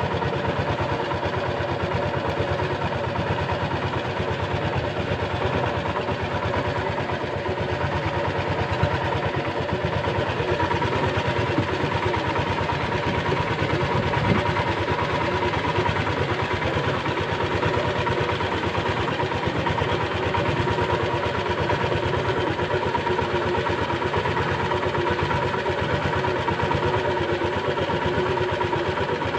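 Small wooden fishing boat's engine running steadily at trolling speed, a constant-pitched drone that does not rise or fall.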